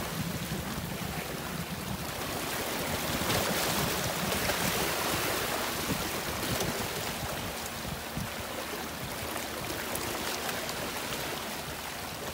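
Sea surf washing on the shore: a steady hiss of water that swells and eases over several seconds.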